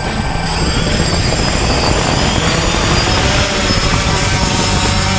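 DJI Phantom quadcopter's four brushless motors and propellers running at flight speed as it lifts off, a steady buzz with a constant high-pitched whine.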